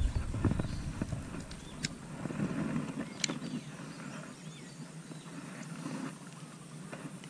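Close handling noise as a freshly caught common snakehead is gripped and held up with a plastic lip grip: rustling and brushing against the microphone, heaviest in the first second or so, with a couple of sharp clicks around two and three seconds in.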